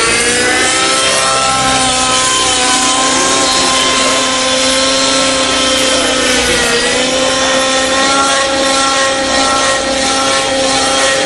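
Align T-Rex 700N nitro RC helicopter in flight: its glow engine and spinning rotors make a steady high-pitched whine. The pitch sags briefly about six and a half seconds in, then climbs back.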